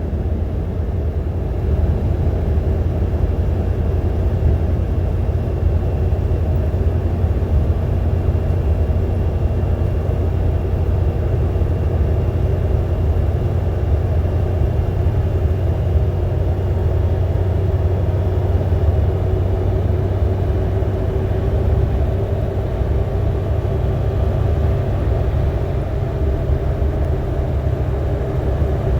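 Suzuki Jimny JA71 being driven, a steady low engine and road rumble with no clear revving. The JA71 has a small turbocharged three-cylinder engine.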